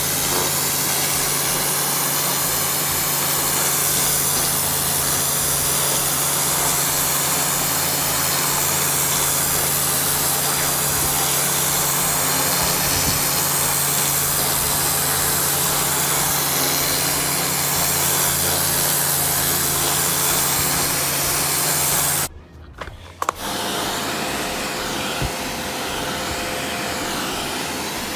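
Kärcher HD 6/13 CX professional pressure washer running, its rotary-nozzle jet spraying hard onto concrete paving tiles: a loud, steady rush of water with a steady hum underneath. About three-quarters of the way through it stops abruptly, and a quieter steady spray follows.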